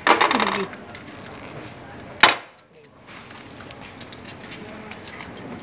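Metal clatter and knocks from hand work on an escalator drive motor's brake disc, with one sharp knock about two seconds in.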